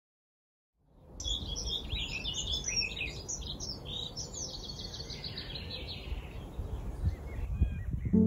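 Small birds chirping and singing over a low, steady rumble of wind on the microphone. Both come in after about a second of silence, and the birdsong thins out near the end.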